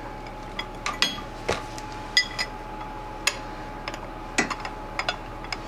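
Light metallic clicks and clinks, about nine, at irregular spacing over a faint steady hum: hand tools knocking against engine parts while the engine is being turned toward top dead center.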